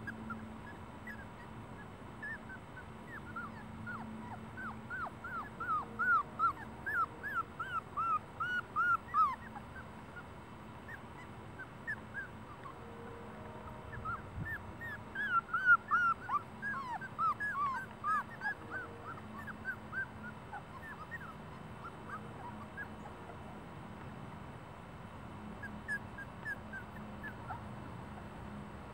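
Young puppies whimpering and crying in short, high-pitched squeals. There are two runs of rapid cries, one from about four seconds in and one around the middle, with fainter single whimpers between.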